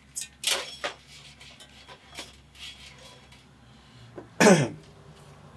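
Short rustles and clicks from the bundled wiring harness being handled, then a man coughs once, loudly, about four and a half seconds in.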